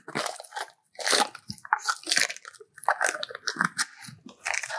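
Plastic packaging crinkling and crackling in irregular bursts as it is handled and opened to get a drill press chuck adapter out.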